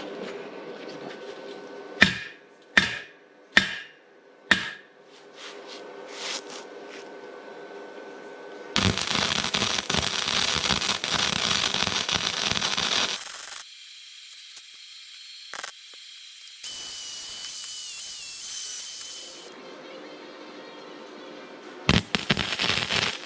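Arc welder crackling as it lays weld on steel frame tubing: four short arc strikes about two seconds in, then a longer stretch of steady crackle, and crackling again near the end. The welding is filling a hole burned through the metal.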